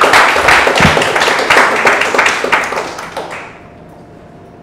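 Audience applauding, many hands clapping fast, dying away about three seconds in.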